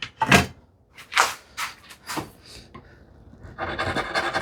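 A hand tool working wood: a few short scraping strokes, then a longer continuous rasping scrape starting near the end.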